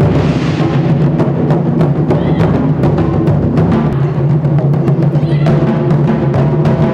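Music with a rapid, steady drumbeat over sustained low notes.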